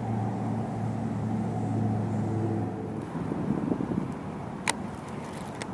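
A steady low motor-vehicle engine hum that fades out about halfway through, followed by two sharp clicks near the end.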